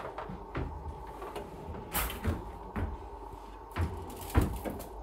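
Kitchen drawers and cupboard doors being pulled open and pushed shut, with things rattling and knocking inside them: a string of about five sharp knocks, the loudest near the end.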